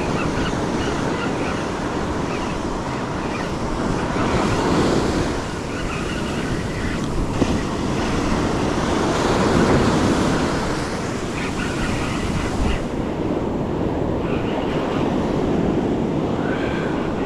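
Ocean surf breaking and washing up the beach, swelling and easing, with wind rumbling on the microphone.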